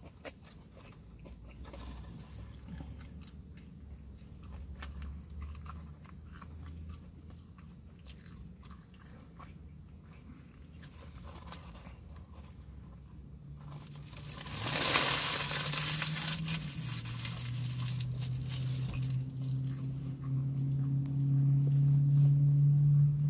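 A person chewing and biting into a chili coney dog, with soft crunching and mouth clicks. About fourteen seconds in, a loud rush of noise comes in, followed by a steady low hum that shifts pitch once and grows louder toward the end.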